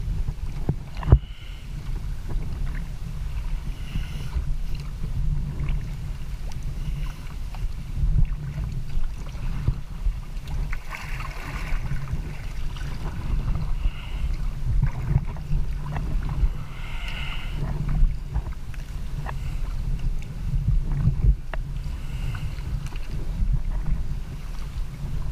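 Sea kayak paddling: water splashes from the paddle blades recur every couple of seconds over a steady low rumble of wind and water on the microphone.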